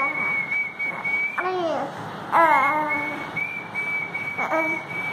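A high whistle held on one steady note, broken off briefly now and then. A four-month-old baby coos over it three times in short sounds that fall in pitch.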